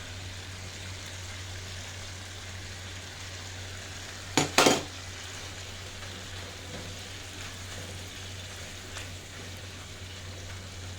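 Eggs and tomatoes frying in a pan with a steady sizzle over a constant low hum. About four seconds in come two sharp knocks close together.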